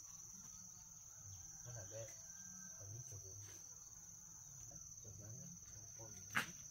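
Faint, steady high-pitched insect trill, typical of crickets, with a single sharp click near the end.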